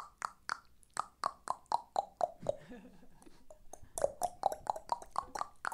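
A beatboxer's tongue clicks played as a melody, the shape of the mouth changing the pitch of each click: a quick run of about four clicks a second rising and falling in pitch, with a short lull around the middle before they pick up again.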